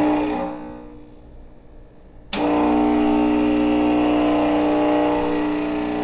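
Nuova Simonelli Oscar II's vibratory pump humming as it pushes water and cleaner against a blind portafilter basket during a backflush. A short burst dies away in the first second, then the pump starts again abruptly about two seconds in and runs steadily.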